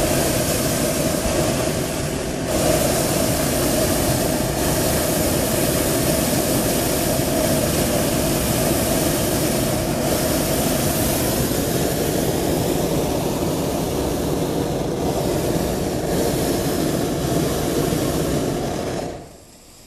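Hot-air balloon's propane burner firing in one long, steady burn that dips briefly about two seconds in and cuts off suddenly near the end. The burn heats the envelope to make the balloon climb.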